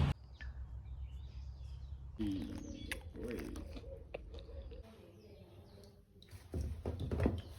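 A bird calling faintly, a few short curving calls about two to three seconds in, over low outdoor background noise.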